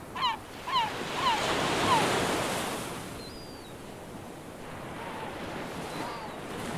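Surf: a wave washes in, swelling to its loudest about two seconds in, then settles into a steady, quieter wash. A run of repeated honking bird calls trails off in the first second and a half, and a few faint bird chirps come later.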